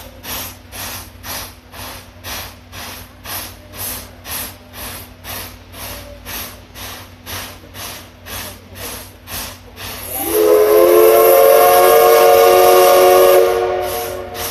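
Steam whistle of the C11 325 tank locomotive blowing one long blast. It starts about ten seconds in with a quick rise in pitch, holds for about three and a half seconds, then fades away. Before it, a rhythmic hissing pulse sounds about three times a second.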